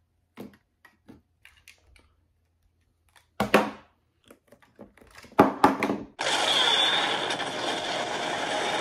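Light clicks and knocks of a sixth-scale collectible figure and its small parts being handled, with two louder knocks about three and a half and five and a half seconds in. About six seconds in, a sudden loud, steady rushing noise of a fiery explosion cuts in and carries on.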